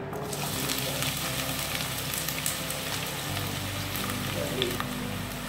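Chopped red onions dropping into hot coconut oil in a saucepan and sizzling steadily, with light crackles. The sizzle starts suddenly as the onions go in.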